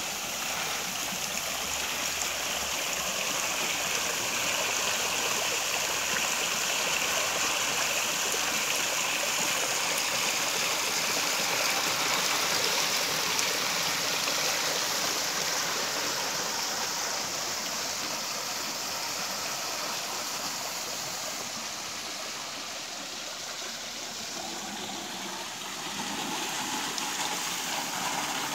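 Water cascading over the tiered ledges of a natural-stone garden waterfall into its pool: a steady rushing splash, a little quieter for a few seconds shortly before the end, then fuller again.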